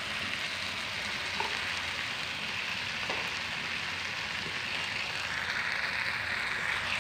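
Thick peanut satay sauce sizzling steadily in a frying pan around chicken drumsticks, with a couple of faint ticks.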